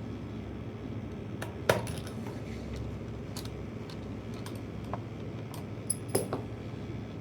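Scattered sharp clicks and metallic clinks of small laptop parts and a screwdriver being handled, loudest about two seconds in and again in a quick pair near the end, over a steady low hum.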